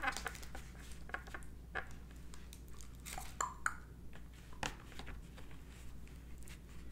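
Metal fork scraping and tapping as chicken salad is scooped and spread onto a croissant half in a plastic clamshell container, with scattered clicks and plastic crinkles. A steady low hum from a room air conditioner runs underneath.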